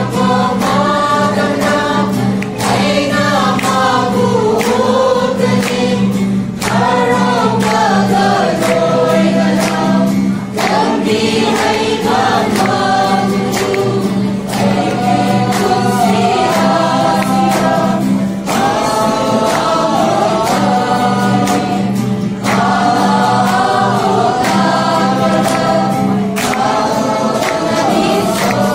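A mixed group of voices sings a Christmas song together, in phrases, to a strummed acoustic guitar.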